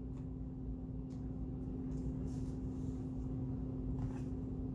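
Oracle cards being handled on a wooden table: a few faint soft taps and slides, over a steady low hum.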